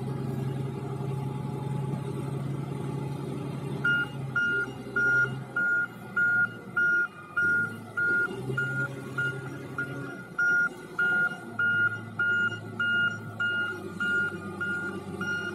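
Wheel loader's diesel engine running as it manoeuvres with a log, its note shifting a few times. About four seconds in, its reversing alarm starts beeping steadily, about two loud beeps a second.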